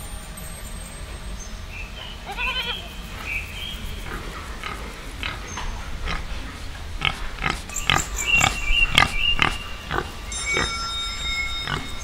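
A goat bleats once about two and a half seconds in. From about four seconds a pig grunts in a quick series of short, sharp grunts, loudest near the end of the run.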